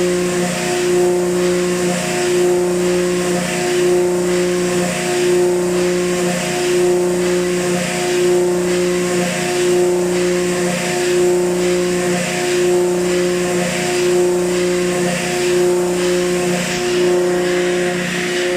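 HAAS VF-8/40 vertical machining center milling metal: a steady pitched spindle and cutting tone with a hiss on top, pulsing in an even rhythm about once every 0.8 seconds.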